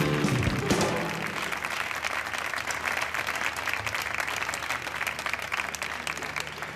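Studio audience applauding. Music plays under the clapping at first and fades out after about a second, and the applause slowly dies down.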